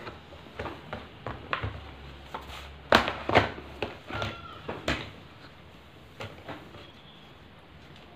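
Cardboard puzzle box being opened, then cardboard jigsaw pieces handled and shuffled in its tray: a run of irregular knocks and scrapes, the loudest about three seconds in.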